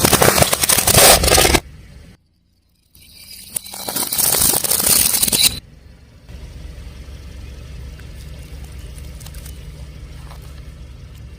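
Two loud spells of crunching and crackling, each a second and a half to two and a half seconds long, as a car tyre rolls over objects and crushes them. These are followed by the car's steady low rumble.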